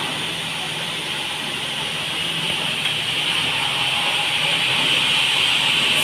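Band sawmill running, a steady hissing noise that grows slowly louder.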